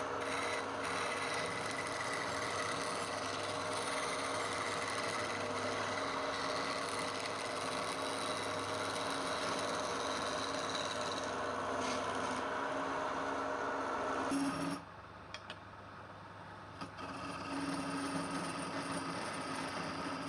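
Wood lathe running with a cutting tool working the spinning wood, a steady machine sound with a scraping edge. About three-quarters of the way through it drops away suddenly for a couple of seconds, with a few clicks, then comes back at a different pitch.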